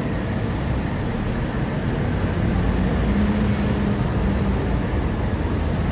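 Steady low rumble of street and tram noise around a Hiroshima Electric Railway Green Mover LEX low-floor tram standing at the stop. A low hum rises over it for about two seconds midway.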